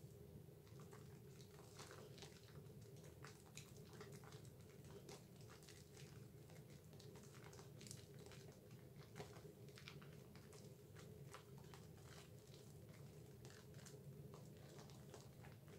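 Faint wet squishing and crackling of thick soap lather as hands rub and squeeze a Dove bar of soap, many small irregular pops and squelches, over a steady low hum.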